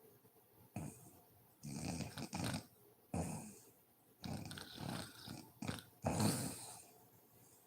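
Woman snoring in her sleep: an irregular run of short, fluttering snores and snorts, the loudest about six seconds in.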